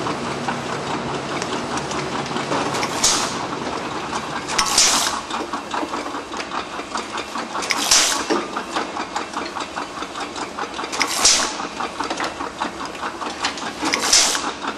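Pneumatic top-off nozzle giving five short hissing sprays a few seconds apart, laying a film of glycol or water onto the paint in an open can as an anti-skinning top-off. A steady rapid machine rattle runs underneath.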